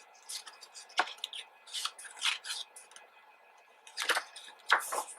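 Pages of a photo book being handled and turned: short paper rustles and light taps, several scattered through the few seconds.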